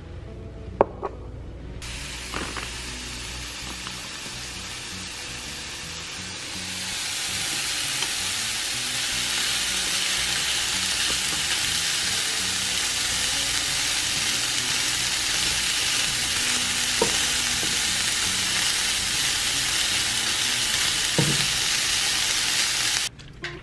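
Chicken pieces sizzling in a frying pan while being stirred with a wooden spatula. The sizzle grows louder about seven seconds in, with a few short knocks over it, and it cuts off just before the end.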